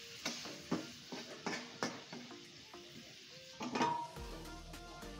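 Metal spatula scraping and knocking against an iron karahi as chicken pieces and tomatoes are stirred and sizzle in oil, a stroke every second or so.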